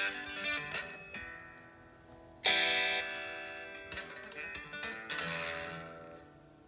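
Electric guitar played slowly: a chord strummed about two and a half seconds in rings and fades, with lighter picked notes and another ringing chord after it.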